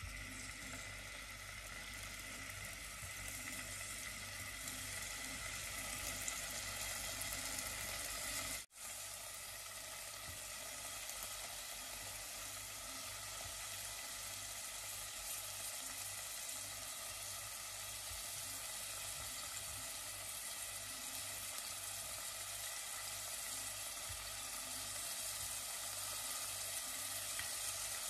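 Raw beef cubes sizzling in hot oil in a pot as pieces are added one at a time: a steady frying hiss, with a split-second break about nine seconds in.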